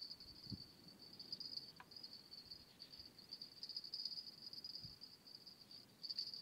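Insects chirring: a steady, faint, high-pitched trill that pulses with brief gaps, with a couple of soft low thumps.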